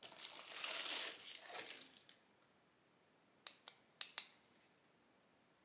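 Plastic wrapping rustling and crinkling for about two seconds as a bagged part is handled, followed by four light clicks a second or so later.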